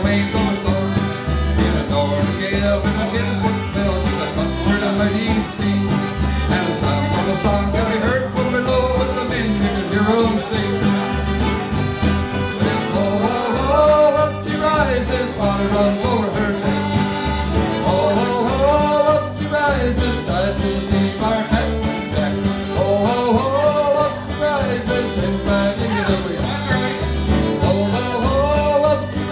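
Live band music: button accordion, acoustic guitar and electric bass playing a lively tune over a steady bass beat.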